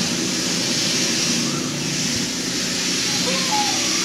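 Steady rushing background hiss with a low murmur of voices beneath it, and a few faint short chirps about two to three and a half seconds in.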